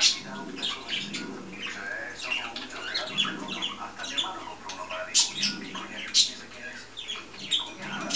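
Two pet budgerigars chattering and warbling, a dense run of short chirps and squawks with a few louder, sharp calls.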